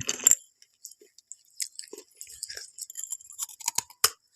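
Crunchy food being bitten and chewed: one loud crunch right at the start, then scattered small crackles and clicks.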